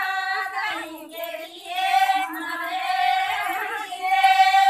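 Women's voices singing a Banjara devotional folk song in long, high held notes, phrase after phrase with short breaths between.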